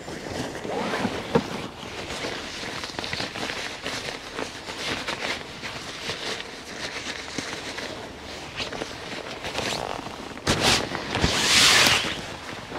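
Gear being handled in the rear of a camper van: scattered knocks, clunks and rustling. Near the end comes a louder rasp of fabric lasting about a second and a half.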